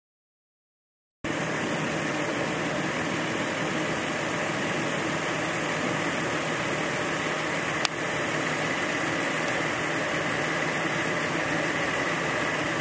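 An engine running steadily at idle. It cuts in suddenly about a second in, with a single brief click past the middle.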